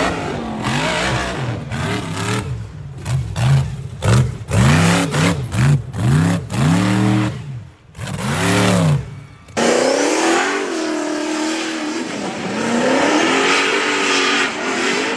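Side-by-side UTV engine revved in repeated short bursts, its pitch rising and falling again and again. About nine seconds in the sound cuts abruptly to an engine running more steadily with slower rises and falls in pitch.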